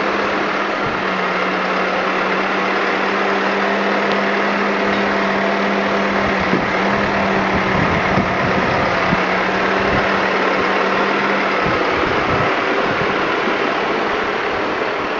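Valtra tractor's diesel engine running steadily at low revs, with a steady hum, as it manoeuvres with its front loader lifting a wrapped silage bale.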